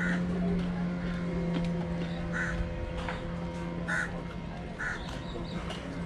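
Crows cawing a few times, each a short separate call, over a steady low hum that is most likely the moored boat's engine idling.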